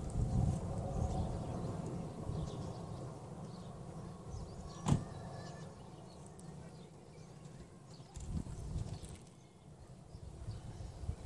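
Low rumbling outdoor noise with faint scattered high chirps, and a single sharp click about five seconds in.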